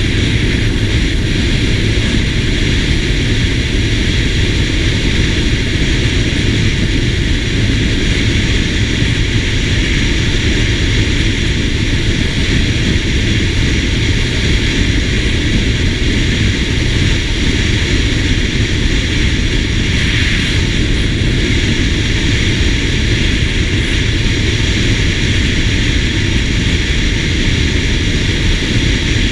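Steady wind rush and road noise from a SYM GTS 250 scooter cruising at constant speed, with wind buffeting the camera microphone.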